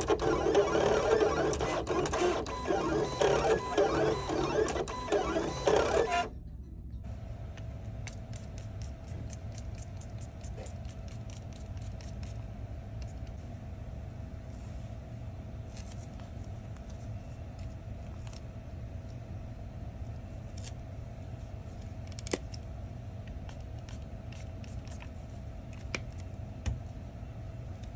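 Protection Pro film-cutting plotter running loudly as its carriage drives the blade across the film sheet, cutting off suddenly about six seconds in. After it a quieter steady hum with one held tone and occasional faint clicks of film being handled.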